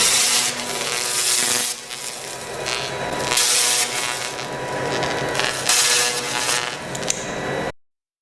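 Seagull 2 pulse laser cleaning machine at work on metal: a harsh crackling hiss that swells and fades about every two to three seconds over a faint steady hum, then cuts off suddenly near the end.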